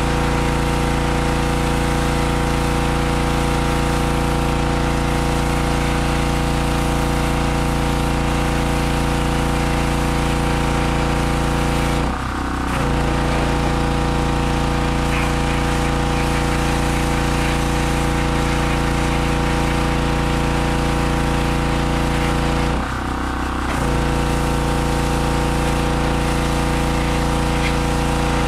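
Harbor Freight 2500 PSI pressure washer's 160cc four-horsepower gas engine and pump running steadily while washing a deck, with the engine note dipping briefly twice.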